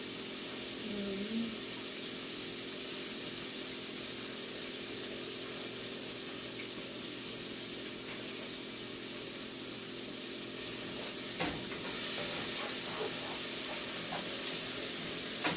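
Hot oil sizzling steadily in a skillet on the stove, with one sharp utensil click about eleven seconds in.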